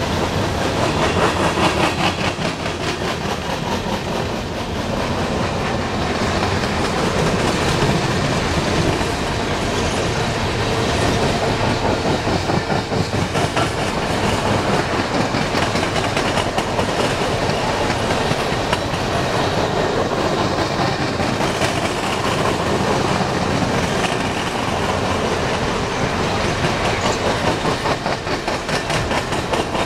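A Canadian Pacific coal train's loaded coal cars rolling past close by: a steady rumble of steel wheels on rail, with a dense, rapid clicking of the wheels over the rail joints.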